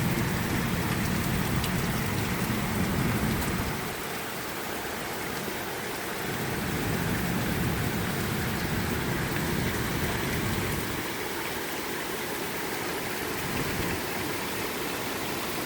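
Heavy rain with hail pelting the lawn: a dense, steady hiss with a few sharp ticks. A low rumble swells twice, in the first few seconds and again in the middle.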